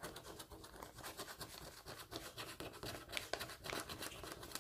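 A round plastic scraper rubbing the coating off a scratch-off lottery ticket in quick, repeated short strokes, a few of them louder about three seconds in.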